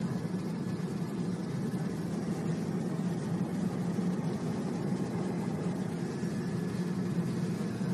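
Steady low rumble of a car's road and engine noise heard from inside the moving vehicle.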